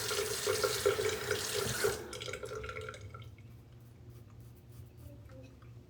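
Water running from a tap into a sink, shut off about two seconds in, followed by a few faint clicks.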